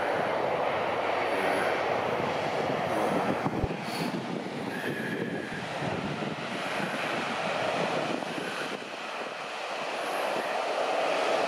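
Steady rumble of a motor cruiser's engine and wake, growing louder near the end as the boat speeds past.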